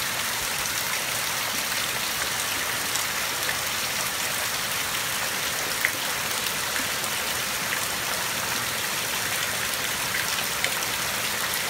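Heavy rain pouring down steadily, a dense hiss with a few louder single drops striking close by, one about six seconds in and another near the end.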